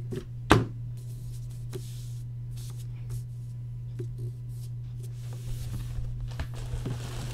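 Cardboard box being handled and opened: a sharp knock about half a second in, then scattered soft taps and rustles as the contents are pulled out near the end, over a steady low hum.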